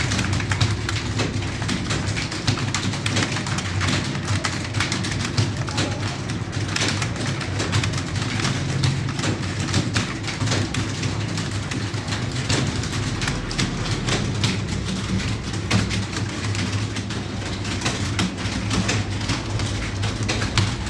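Many computer keyboards clattering at once, a dense, unbroken stream of key clicks from several people typing, over a steady low hum.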